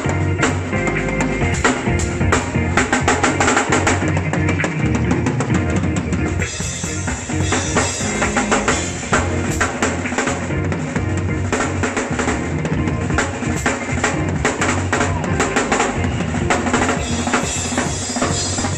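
Drum kit played with sticks in a busy groove of bass drum, snare and cymbals, the cymbals growing brighter and more prominent about six seconds in.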